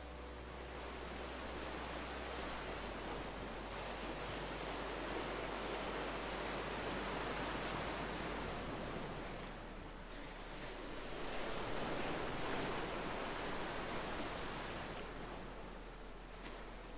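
Ocean surf ambience: waves washing in as an even rushing hiss that swells and recedes twice.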